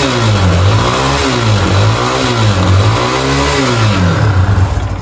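Motorcycle engine revved up and down repeatedly, about once a second. The mechanic puts the noise and the smoking at high revs down to a worn cylinder kit (piston and rings).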